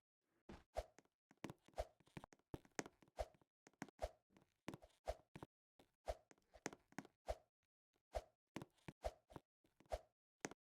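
Pieces of a stacking tower toy being set down or handled one after another: a string of light, sharp taps, irregularly spaced at about one or two a second, each with a brief ring.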